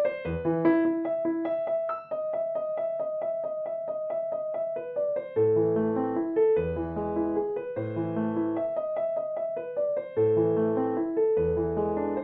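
Background piano music: a run of quick repeated notes, then slower chords over a low bass note about once a second.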